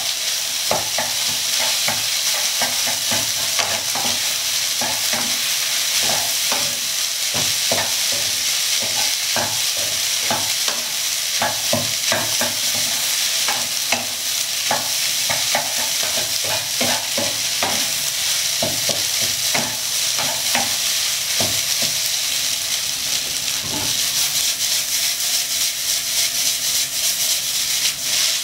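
Rice stir-frying on high heat in a nonstick wok: a steady sizzle, with a wooden spatula scraping and knocking irregularly against the pan.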